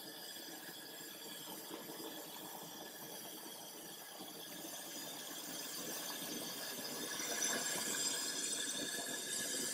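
Kitson and Chance Brothers 55 mm kerosene vapour mantle burner running under pressure, a faint steady hiss that grows a little louder in the second half.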